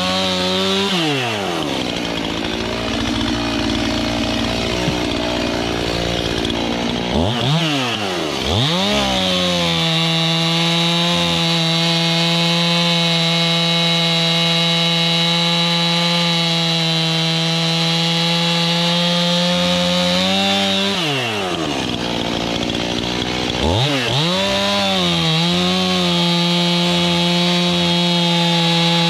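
Chainsaw engine running at high revs, held steady for long stretches. The throttle is let off and the revs fall and climb again a few times: about a second in, around seven to nine seconds in, and again past twenty seconds.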